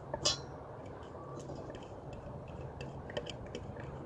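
A utensil clicking and scraping against a clear chopper jar as diced jalapeños are scraped out of it: one sharp click about a quarter-second in, then scattered faint ticks, over a low steady hum.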